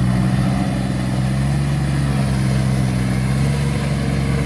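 Rice-field tractor engine idling steadily, a low even hum.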